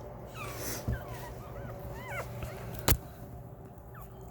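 Nursing puppies squeaking in short, high whimpers, several times. A single sharp click sounds a little under three seconds in.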